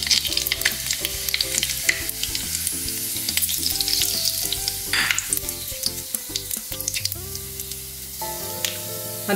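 Cumin and fennel seeds with cloves, cinnamon and fenugreek sizzling in hot oil, with many small sharp pops as the seeds crackle: whole spices being tempered in hot oil. Soft background music with held notes plays underneath.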